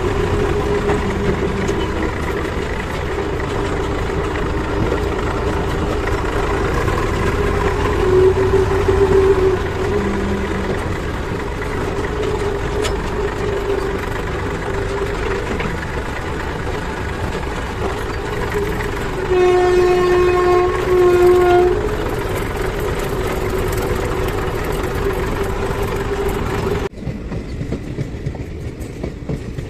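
Tractor's diesel engine running steadily while driving, heard from the driver's seat. About two-thirds of the way through a horn sounds twice, a long blast and then a shorter one. Near the end the sound cuts to a quieter background.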